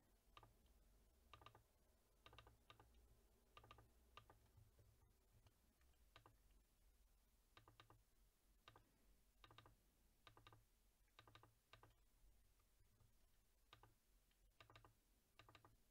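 Faint, irregular clicking of a computer mouse and keys, many of the clicks in quick pairs, over a low hum.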